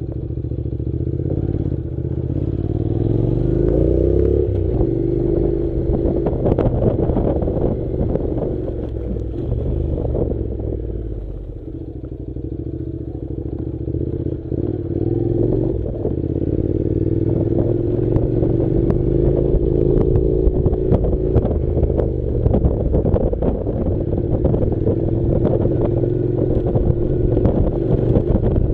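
Honda NC700's 670 cc parallel-twin engine pulling the motorcycle up a loose gravel track, with stones clattering under the tyres. The revs climb for the first few seconds, drop sharply, and later rise gently again.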